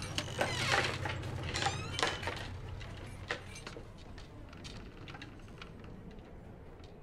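Door knob and latch of a glass-panelled door being worked: clicks and rattles, with a short creak, in the first two or three seconds, then quieter room tone.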